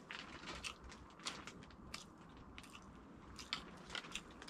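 Faint chewing with small crunches and scattered clicks: a person eating grilled fish.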